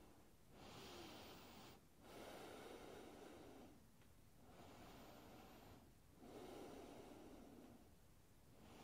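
Faint, slow breathing by a woman holding a yoga pose: four long breaths of about one and a half seconds each, with short pauses between them.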